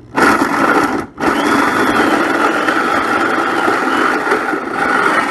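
Corded drill with a hole saw cutting into the car's sheet-metal body panel: a steady grinding whirr that stops for a moment about a second in, then runs on without a break.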